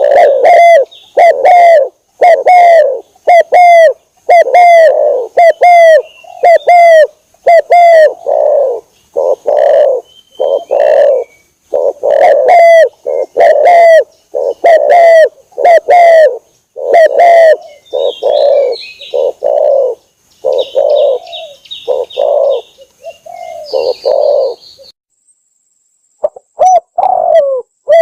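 Spotted dove (tekukur) cooing over and over: a long run of loud, low coo notes, about one to two a second, with a short gap near the end before a few more coos.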